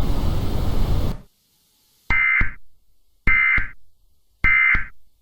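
A hiss of static cuts off about a second in. After a pause come three short, identical EAS SAME digital data bursts, evenly spaced about a second apart: the end-of-message code that closes an emergency alert.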